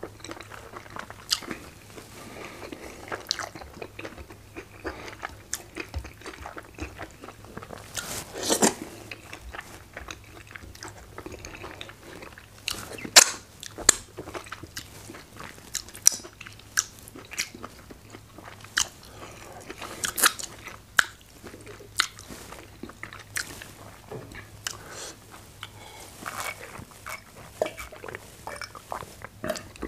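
Close-miked eating mouth sounds: wet lip smacks, sucking and chewing clicks, coming irregularly, as fingers are licked clean of soup.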